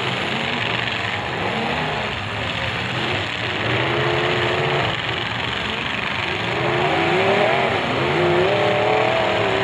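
Engines of several full-size demolition derby cars running and revving together, pitch rising and falling, over a steady din.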